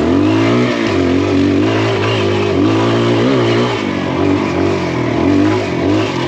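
Kawasaki KLX dirt bike's single-cylinder four-stroke engine revving up and dropping back again and again as the rider opens and closes the throttle through tight trail turns.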